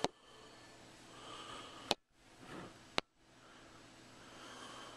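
Faint breathing through the nose, swelling and fading. It is cut by three sharp clicks: one at the start, one just before two seconds in and one about three seconds in.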